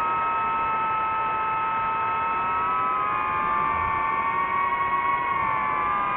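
DJI FPV quadcopter's motors and propellers whining in flight: several steady tones that drift slightly up and down in pitch as the motor speeds change, over a rush of air noise.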